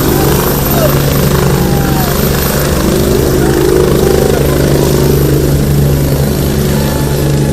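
Loud, steady engine drone with a fast low throbbing, and a few faint voices behind it.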